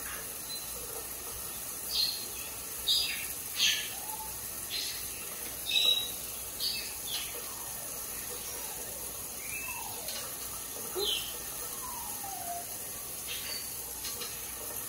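Pet parrots chirping and calling in a string of short, sharp calls, about a dozen in all, with a few falling whistles, over the steady hiss of a running shower.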